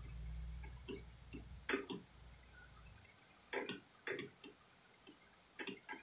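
Scattered light clicks and taps of tools and small parts being handled while a loose terminal connector is worked on. A low hum runs under them and cuts off about halfway through.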